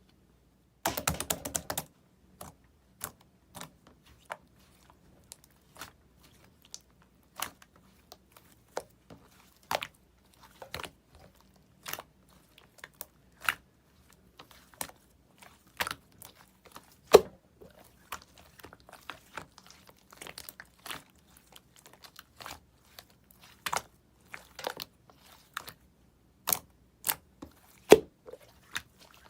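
Slime being pressed and kneaded by hand, giving irregular sharp clicks and pops, with a short burst of crackling about a second in.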